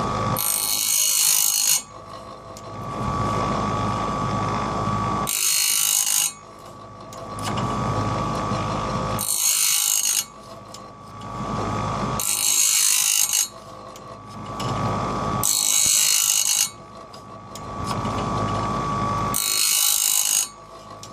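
Home-made bandsaw blade sharpener at work: its grinding wheel runs with a steady whine and grinds the front of one tooth after another, a second-long hiss about every three and a half seconds, six times.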